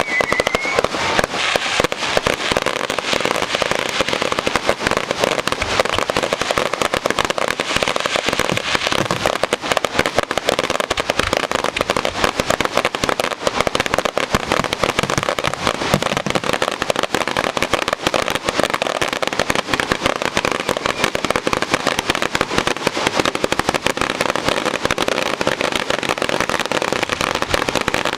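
Fireworks finale: a rapid, unbroken barrage of aerial shell bursts and crackling, many reports overlapping with no pause.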